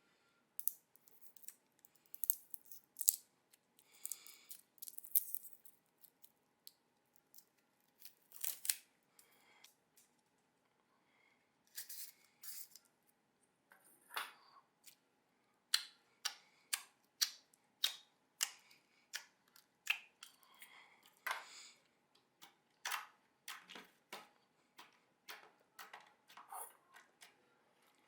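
Store-bought slime being squeezed and poked by hand, giving irregular sharp pops and clicks, some in quick clusters.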